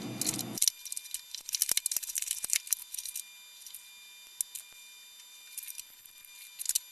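Packaging crinkling and rustling as a keyboard is unwrapped: a dense run of crackles for the first few seconds, then only scattered ones, with a short flurry near the end.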